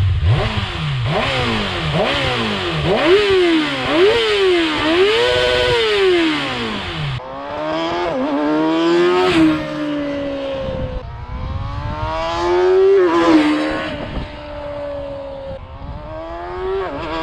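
Kawasaki ZX-6R 636 inline-four sounding through an Arrow full exhaust system. Quick rev blips rise and fall for about seven seconds. Then the bike rides past three times, each time climbing in pitch and dropping sharply as it goes by.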